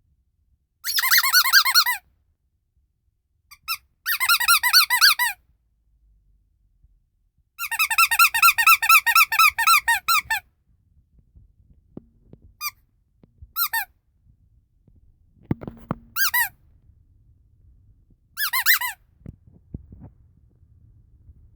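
Vintage rubber squeaky toys of Snow White and the Seven Dwarfs squeezed in quick runs of short, high squeaks, about half a dozen bursts of varying length, the longest lasting nearly three seconds, with faint handling noise in the gaps.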